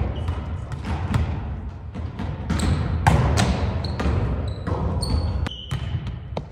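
Volleyball being struck by players and bouncing on a hardwood gym floor: a series of sharp slaps and thuds at irregular intervals, echoing in the large gym, with a few short high sneaker squeaks.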